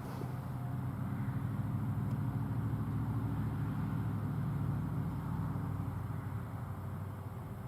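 A motor vehicle's engine running, a steady low hum that grows louder after about a second and fades near the end.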